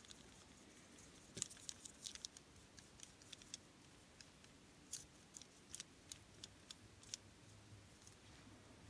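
Faint, irregular clicks and light crinkles as a nail art brush works a dab of glue on a sheet of aluminium foil, thinning it with water.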